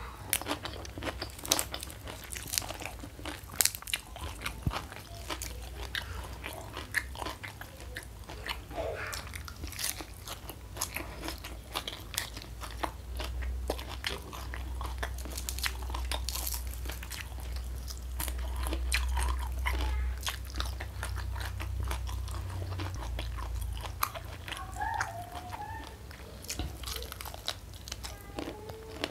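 Close-miked crunchy biting and chewing of raw greens and crispy fried mushroom with sambal, sharp crunches coming one after another. A low rumble sits under the chewing for about ten seconds in the middle.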